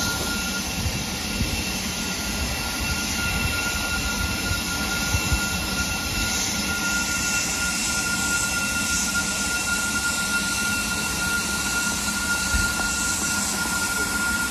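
BR Standard Class 9F steam locomotive Black Prince standing with steam hissing steadily from it, one continuous loud hiss with a faint high steady whine running through it.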